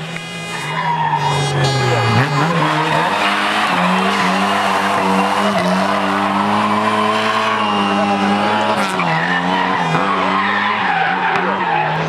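Lada rally car's engine running hard at high revs, its pitch falling about two seconds in and then held high with brief dips, with tyres squealing as the car slides.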